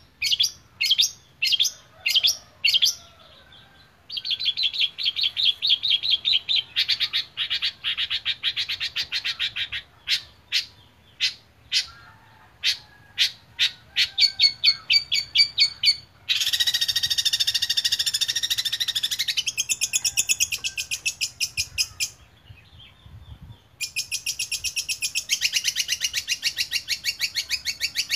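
Caged long-tailed shrike (cendet) singing loudly: runs of single sharp chirps alternating with long, dense chattering rattles, mixing in mimicked calls of other birds such as the Eurasian tree sparrow.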